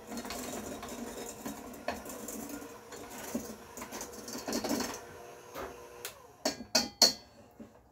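Electric hand mixer running steadily on its lowest speed, its beaters working crumbly shortbread dough in a stainless steel bowl. The hum drops away about five seconds in, followed by several sharp knocks.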